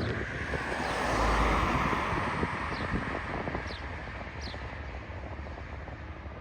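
Airbus A330 jet airliner landing: engine and airflow noise swells to a peak about a second and a half in, then slowly fades as it passes. Short falling bird chirps repeat over it.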